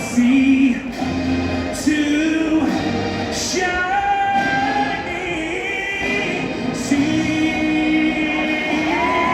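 Music with a singing voice: a melodic vocal line of long held notes that glide between pitches, over instrumental accompaniment.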